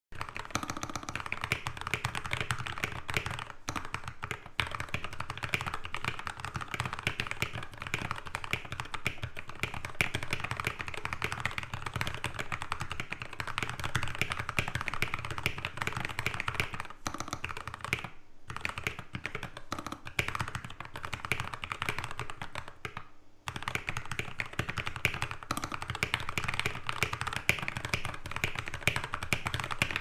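Fast, continuous typing on a custom RK68 keyboard with lubed Gateron Milky Yellow linear switches on a stainless steel plate. The keystrokes run densely, with a few brief pauses.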